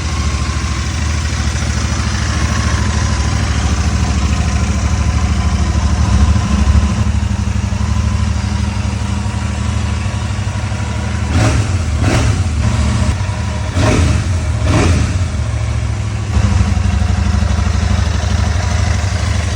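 Royal Enfield Super Meteor 650's parallel-twin engine idling steadily, with a few short revs about two-thirds of the way through.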